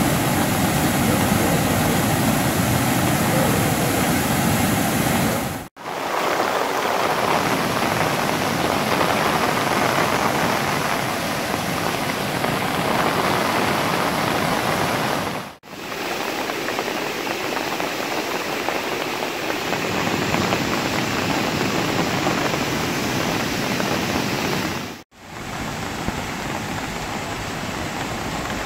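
Floodwater gushing out of stormwater drains as churning whitewater: a loud, steady rush that cuts out briefly three times.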